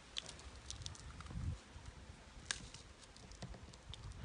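Kitchen knife slicing hot chili peppers on a cutting board: a scattering of light, irregular taps of the blade on the board.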